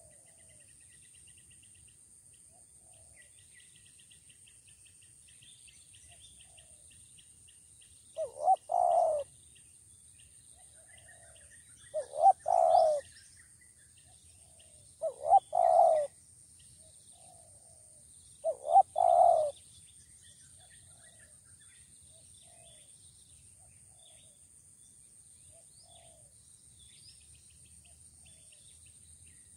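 Spotted dove cooing: four phrases a few seconds apart, each two short notes followed by a longer coo.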